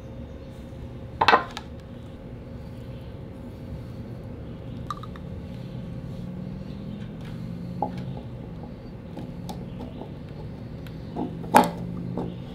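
Knocks and clinks of a PVC pipe and small metal primer and cement cans being handled on a concrete floor, with a sharp knock about a second in and another near the end, over a steady low hum.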